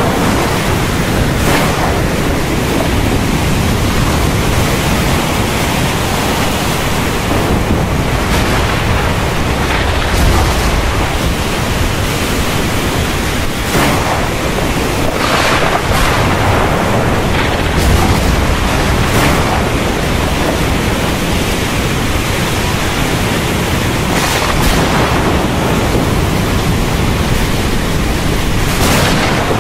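Storm over open sea: a loud, steady rush of wind, waves and heavy rain, swelling now and then into brief surges of hiss.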